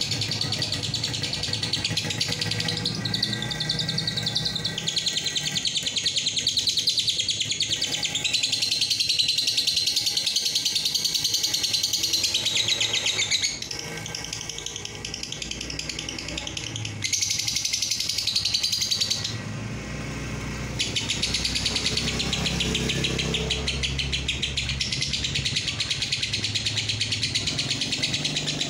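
Caged Fischer's lovebird giving its long 'ngekek' song: a continuous, rapid, high-pitched chattering trill. It drops off briefly about halfway through and breaks off for a second or two about two-thirds of the way through before resuming.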